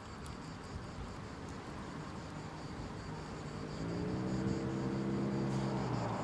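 Outdoor street and light-rail noise at a tram stop, growing steadily louder as a tram approaches. A steady low droning hum comes in about four seconds in and lasts about two seconds.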